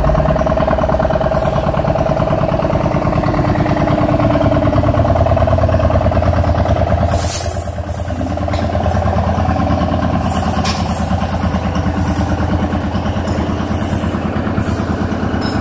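An engine idling steadily with a rapid even throb. It dips briefly about halfway through, and scattered clicks and knocks come in over the second half.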